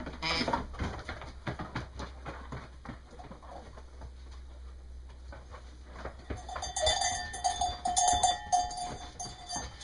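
A pen of East Friesian ewes shuffling and knocking about as they are caught and handled, with scattered hoof and board knocks. In the second half a ewe gives one long bleat of about three seconds that wavers.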